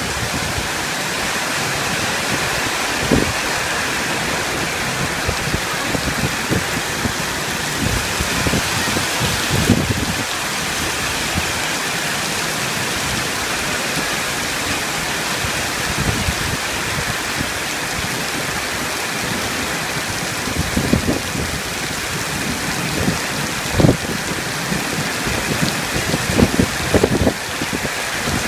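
Heavy rain pouring onto flooded pavement, a steady hiss, with a few brief low thumps.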